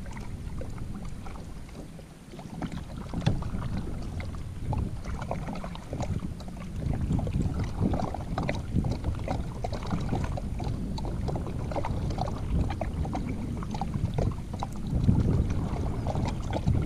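Kayak paddle strokes: the paddle blades dip and splash in the water, with water dripping off them, over a steady low rumble.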